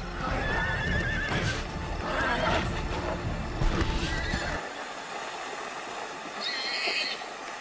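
Two horses fighting, whinnying and squealing several times in wavering calls. About four and a half seconds in the sound thins out, and a short high call follows near the end.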